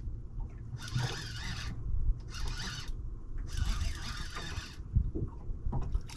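Fishing reel being wound in three spells with short pauses between them, the mechanism whirring as a hooked fish is brought up.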